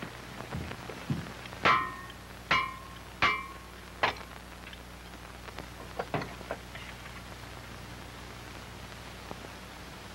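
Four ringing metallic clanks, each roughly a second apart, as tools strike the engine of an old car, followed by a few lighter knocks and taps.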